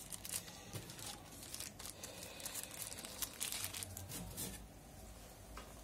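Quiet crinkling and rustling of small plastic accessory bags being handled and moved on a table, a run of short crackles that thins out after about four seconds.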